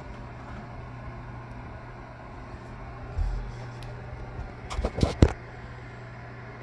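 Steady low electrical hum from the running TV and DVD+VHS player. A dull thump comes about three seconds in, and a quick cluster of clicks and knocks about five seconds in.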